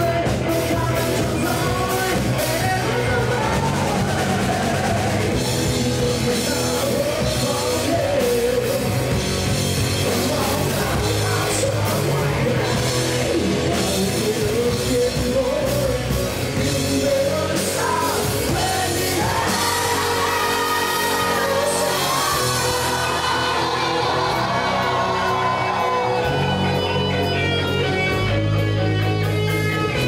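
A rock band playing live: a male singer's vocals over electric guitar and a drum kit.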